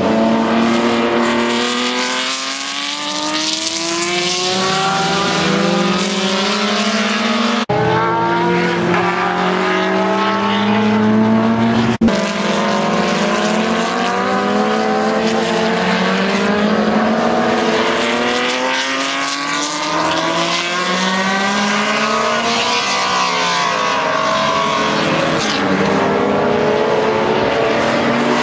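Weslake V12 of a 1960s Eagle Mk1 Formula 1 car accelerating hard past the track, its note climbing steeply through each gear and dropping at every upshift, over several passes. The sound breaks off abruptly twice, at cuts in the footage.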